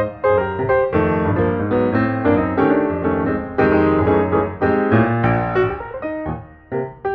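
Piano music: a quick, busy run of notes with a bass line under it, dipping briefly near the end.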